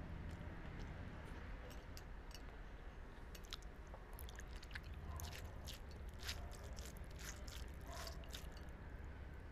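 A person chewing a mouthful of fried leafy greens (saga bhaja), with small irregular mouth clicks and crunches, most of them in the middle of the stretch, over a low steady background hum.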